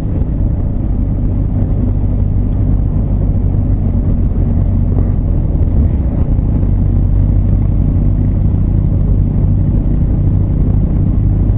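Honda CB1300 Super Bol d'Or's inline-four engine running steadily as the motorcycle cruises, a low, even drone with road noise.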